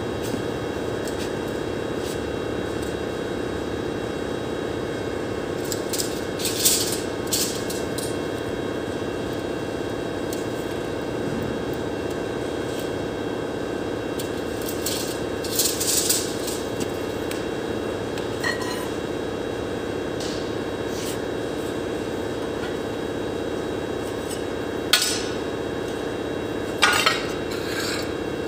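Short metallic clinks and scrapes of steel frame pieces being handled and set down on a concrete floor, in a few brief clusters, over a steady mechanical hum.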